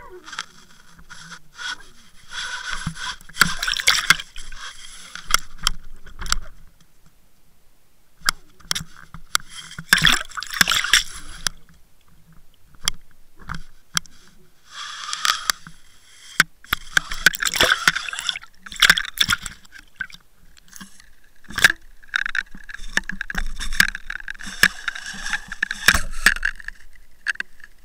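Scraping and knocking on a Water Wolf underwater camera's housing as it moves in the water. The scraping comes in bursts of one to three seconds, with sharp clicks and knocks between them.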